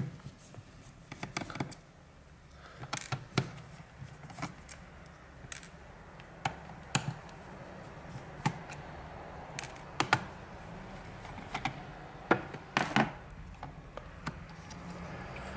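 Scattered light clicks and taps, about a dozen spread irregularly, from hands handling a laptop's 2.5-inch hard drive and the small Phillips screws that hold it in its bay.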